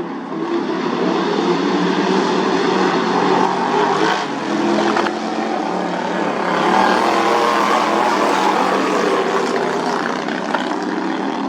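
Racing lawn mower engines running hard, a steady buzzing engine note that wavers in pitch and grows louder about two-thirds of the way through.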